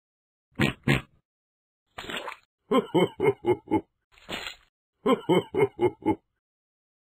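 Cartoon pig sound effects played by a children's website's menu buttons: two quick sounds, then twice over a short noisy burst followed by a run of five quick pitched pulses.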